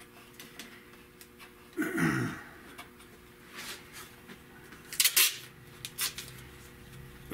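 Quiet handling sounds from a roll of tape being picked up, with small clicks and knocks, and a short sharp rip about five seconds in as tape is pulled off the roll. A brief falling hum of a voice about two seconds in.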